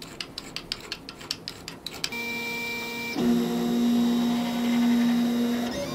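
Worm-drive pipe clamp being tightened with a screwdriver, its screw clicking rapidly, about five clicks a second. About two seconds in it gives way to the Solidoodle 3 3D printer's stepper motors running the carriage, a steady whine that grows louder a second later and stops just before the end.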